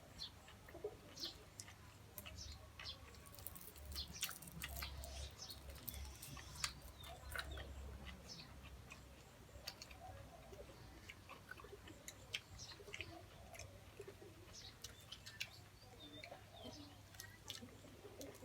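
Close-up eating sounds: chewing and crunching on grilled narrow-mouthed toad, heard as a scatter of short sharp clicks and smacks.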